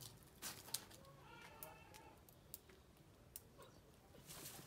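Near silence with a few faint light clicks, then a brief rustle near the end as leaves and stems of the garden plants are brushed.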